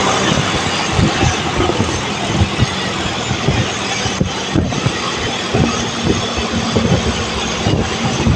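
A road vehicle on the move, its engine running steadily under dense road noise, with wind buffeting the microphone in many short low thumps.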